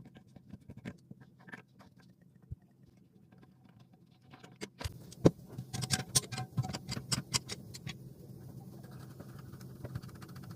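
Scattered clicks, taps and knocks of hands working on plastic toilet-tank parts during a fill valve replacement; the clicks are sparse at first and come thick and fast from about halfway through.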